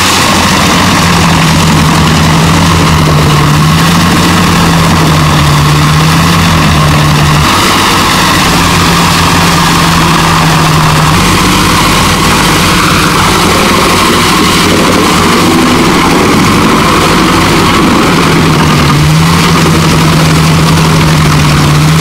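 Bredenstein wood chipper running under load as a crane grab feeds tree branches into it: a loud, steady engine and chipper din whose pitch dips and recovers a few times as wood is taken in.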